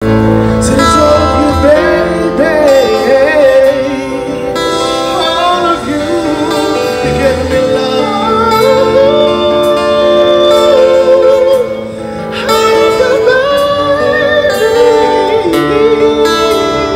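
A man singing a sliding, ornamented melody into a handheld microphone, backed by an acoustic guitar. There is a short break between phrases about twelve seconds in.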